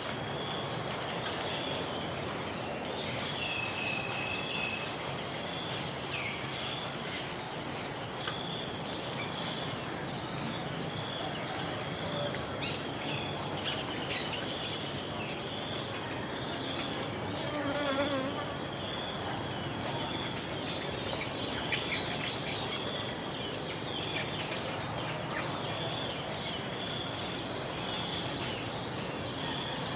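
Insects calling in a dense chorus: a continuous high-pitched whine with a chirp repeated every second or so, over an even background hiss. A short warbling call stands out about halfway through.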